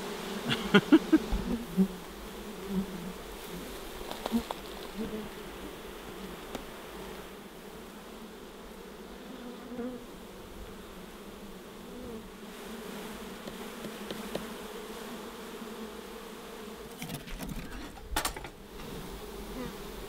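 Honey bees from a disturbed, defensive colony buzzing in a steady hum around an opened hive, as the beekeeper has broken into the brood nest. A few knocks of wooden hive gear being handled near the start and again near the end.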